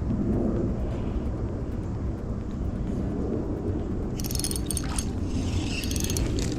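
Fishing reel being cranked in two short bursts of rapid clicking, about four and six seconds in, over a steady low rumble.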